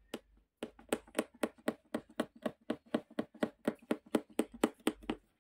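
Punch needle (oriental embroidery needle) piercing fabric stretched taut in a wooden embroidery hoop: a quick, even series of short taps, about four a second, starting about half a second in.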